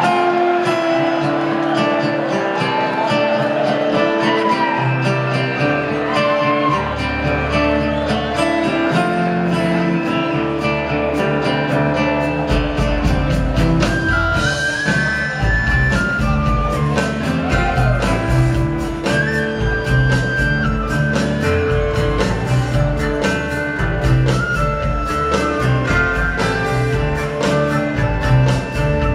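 Live string band playing, led by guitar. A low bass note comes in about five seconds in, and from about twelve seconds on bass and drums keep a full steady rhythm under the melody.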